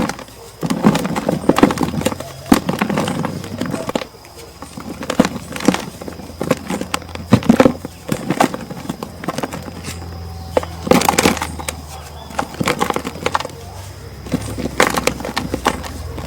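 Dry chunks of pure cement being crumbled and crushed, giving irregular gritty crunches and sharp cracks, with the loudest cracks about two-thirds of the way through and again near the end.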